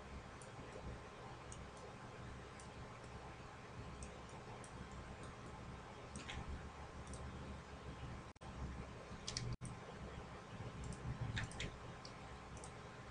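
Computer mouse clicking now and then, about ten short, sharp clicks spaced irregularly as surfaces are picked, over a faint steady low hum.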